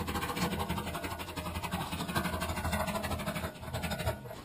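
A tractor engine running steadily with a fast, even pulse, then stopping abruptly near the end.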